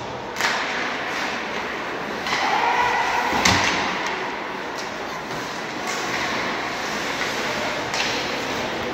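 Ice hockey play in an indoor rink: skates and sticks on the ice under a general hum of the arena, with a sharp bang about three and a half seconds in and another, lighter one near the end.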